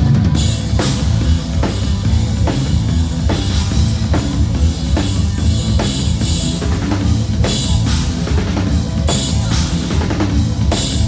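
A rock band playing live with the drum kit to the fore: repeated kick and snare hits over a continuous low bass.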